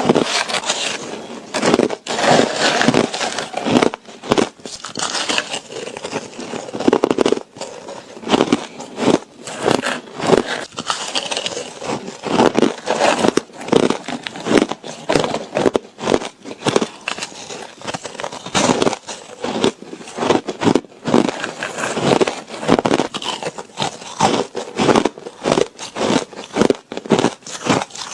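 A person biting and chewing ice, a continuous run of crackling crunches several times a second.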